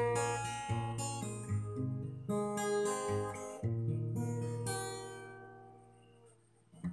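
Acoustic guitar strummed in chords, a strum roughly every three-quarters of a second. About two-thirds of the way in, one chord is left to ring and fades away over about two seconds, and strumming starts again near the end.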